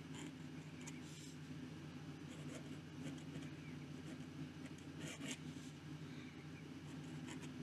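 Zebra G steel flex nib in a Jinhao 159 fountain pen scratching across paper in short, irregular strokes as cursive letters are written, the strongest about five seconds in; the nib writes very scratchy. A steady low hum runs underneath.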